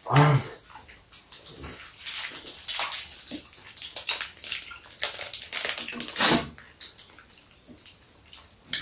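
Two people eating Bungeo Ssamanco fish-shaped wafer ice cream sandwiches: irregular close-up biting, chewing and lip smacks, with plastic wrapper crinkles. A short hum of the voice sounds just at the start.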